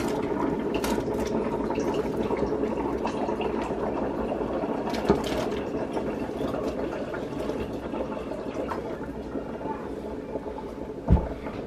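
Pot of pondu (cassava leaves) simmering on the stove with a steady bubbling hiss, while chopped vegetables are pushed off a wooden board into it with a few light knocks. A louder knock comes near the end.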